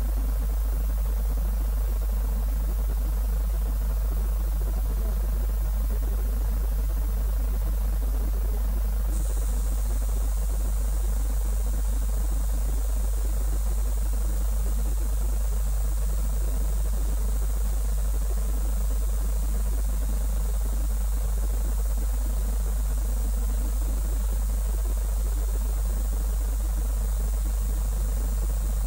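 A steady low hum under a hiss of static, with no distinct events; the hiss turns brighter and higher about nine seconds in.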